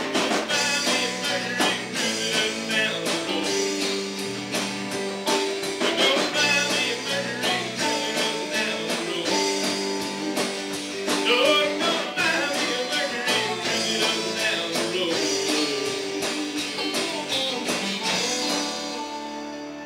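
A live rock band playing a blues song: drums, electric and acoustic guitars, bass and keyboard, with guitar notes bending in pitch. Near the end the drums stop and the last chord rings out.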